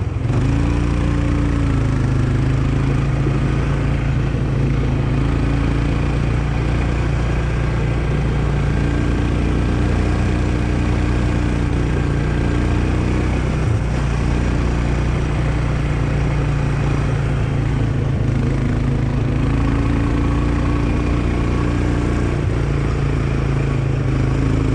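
Quad bike (ATV) engine running steadily while riding a dirt track, its pitch stepping up and down a little with the throttle, over a steady rush of tyre and wind noise.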